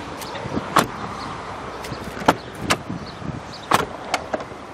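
Car door being handled and shut: several sharp clicks and knocks spaced out over a few seconds.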